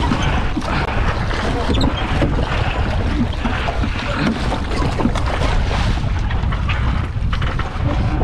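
Wind rumbling on the microphone over water splashing and lapping around a small rowing boat.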